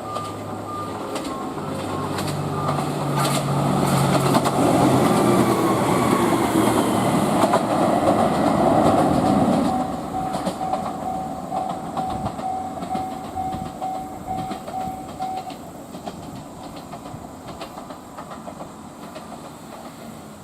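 A train passing on the line, its rumble and wheels on the rails building to a peak and then fading away. A repeating beep sounds through the middle of the pass.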